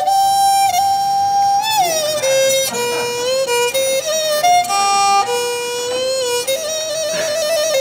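Background music: a solo bowed string instrument playing a slow melody of held notes, with sliding and ornamented changes of pitch.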